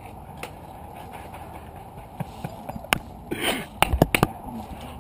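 A sharp click about three seconds in, then a quick run of four sharp clicks and knocks near the end, over steady outdoor background hiss.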